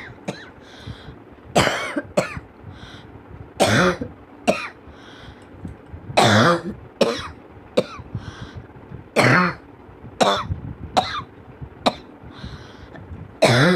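A person coughing over and over: about a dozen separate short coughs, roughly one every second, some ending in a voiced rasp.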